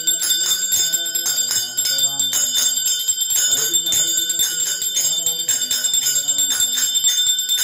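Brass hand bell (ghanta) rung continuously during arati worship, struck in quick, even strokes so its high ringing never dies away. Voices singing the arati hymn sound underneath.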